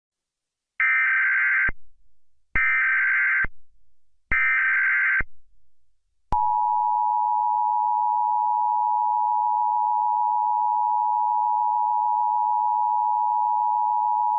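Emergency Alert System tornado warning: three short bursts of SAME digital header tones, each just under a second, then about six seconds in the steady two-tone EAS attention signal begins and holds.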